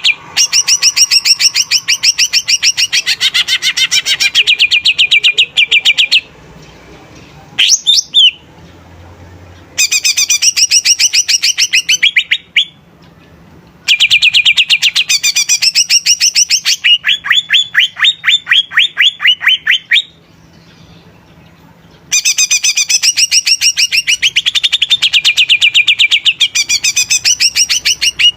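Cucak ijo (green leafbird) singing a loud, fast song: long runs of rapid high notes in phrases of several seconds with short pauses between them. In places the notes sweep quickly downward.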